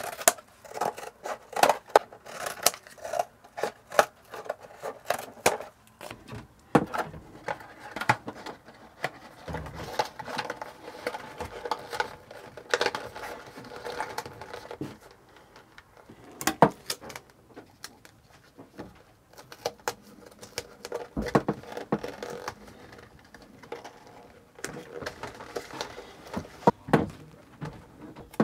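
Irregular clicks, taps and rustling from hands working scissors, tape and the plastic fittings of a small vent fan and hose.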